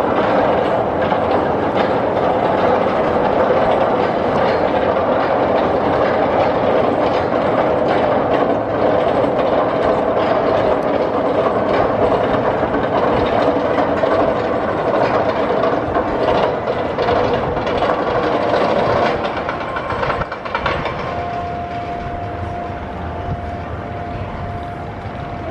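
Arrow Dynamics mine train roller coaster running along its steel track: a loud, steady rumble and clatter of the train's wheels on the rails. The sound drops off about nineteen seconds in, and a thin steady tone holds over the quieter end.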